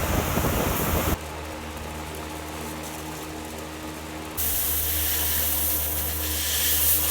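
Steady mechanical hum with a loud rushing hiss. The sound changes abruptly about a second in, and the hiss swells back in about four seconds in.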